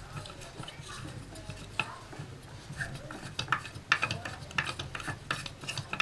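Hardwood parts of a handmade wooden toy combine harvester clicking and knocking together as they are handled and fitted on a wooden floor. Irregular clacks, busier in the second half.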